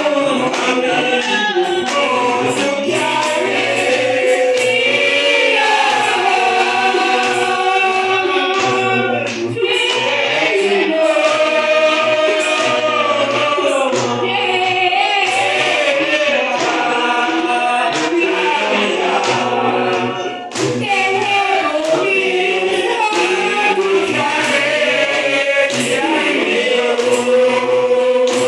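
A Zion church congregation singing a spiritual together in many voices, with sharp rhythmic beats running under the singing.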